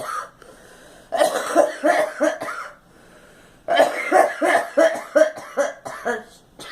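A girl coughing in two fits, each a quick string of coughs: the first about a second in, the second, longer one starting near the middle.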